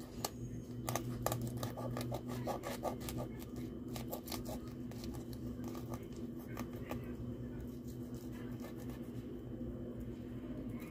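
Knife filleting a small dientudo on a wooden cutting board: a run of small clicks and scrapes as the blade slices along the fish, thinning out after about four seconds, over a steady low hum.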